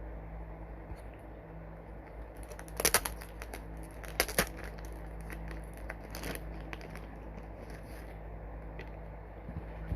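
Hands handling an album and its packaging: scattered crinkles and clicks, loudest in two short clusters about three and four seconds in, over a steady low hum.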